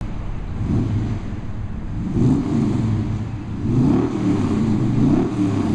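Car engine running, its level and pitch rising and falling several times.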